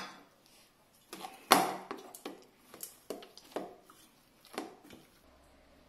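Hands kneading soft maida dough in an enamel pot: a run of irregular soft thuds and knocks as the dough is pressed and turned against the pot, the loudest about a second and a half in.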